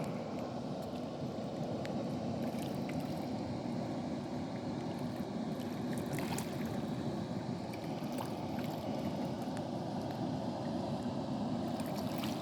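Water released over a low river dam, rushing and splashing steadily with a light rather than deep sound.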